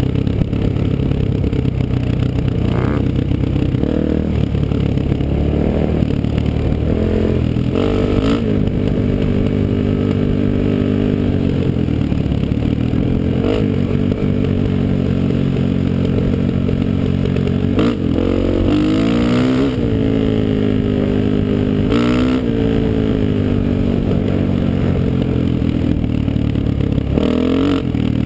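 2002 Honda XR400's single-cylinder four-stroke engine running hard as the dirt bike is ridden along a dirt trail, its pitch rising and falling several times as the throttle is worked. Occasional knocks and clatter are heard over the engine.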